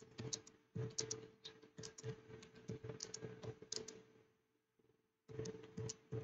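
Typing on a computer keyboard: an irregular run of key clicks, with a pause of about a second near the end before the typing starts again.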